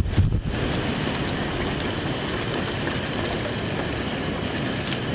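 Steady rain and wind from a thunderstorm, an even hiss with some low wind rumble, a little stronger in the first half-second.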